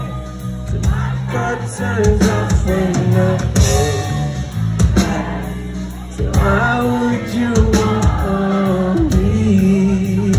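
Live band playing a song: a man singing into a microphone over electric guitars, bass and drums, with heavy bass, heard from within the concert audience.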